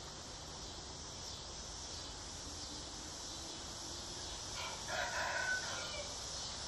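A rooster crows once, about five seconds in, over a steady high drone of insects.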